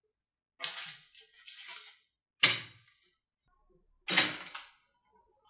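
IKEA Bleckberget swivel chair being handled and set down: three sharp knocks of its base on the floor, the loudest about halfway, with scraping and rustling between the first two.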